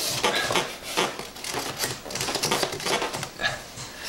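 Plastic and foam parts of a model biplane being handled at the wing struts: an irregular run of light clicks, taps and rustles as the strut pins are worked out.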